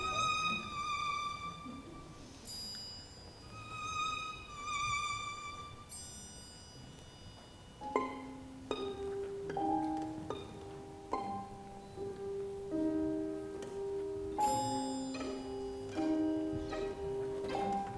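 Instrumental music: a high violin line with vibrato in short phrases, giving way about eight seconds in to slow, ringing struck notes in a repeating pattern.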